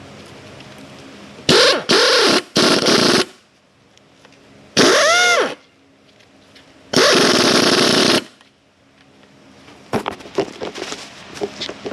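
Impact wrench run in four short bursts, hammering on the strut's top nut, its motor whine rising and falling in each burst. A few light clicks and rattles follow near the end.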